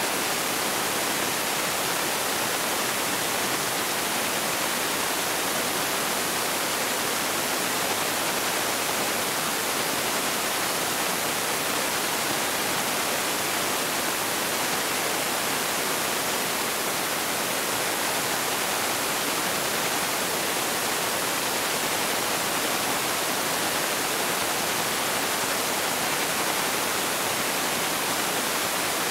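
Top Fuel dragster's supercharged nitromethane V8 running during a pit warm-up, heard only as a steady, harsh hiss that overwhelms the microphone, with no engine note or rhythm coming through.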